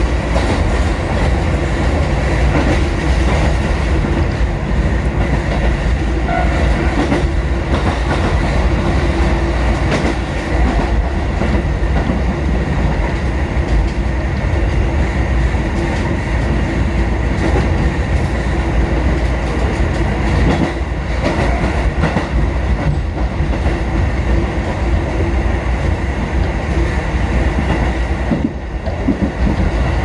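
Kotoden 1080- and 1100-series four-car electric train running between stations. Wheels click over rail joints under a steady running hum.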